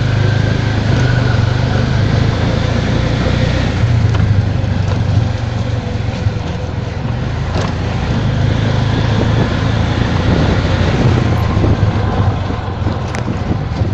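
The engine of a small motor vehicle running steadily as it drives along, heard from on board as a constant low drone with road noise. There is a sharp knock about halfway through and another near the end.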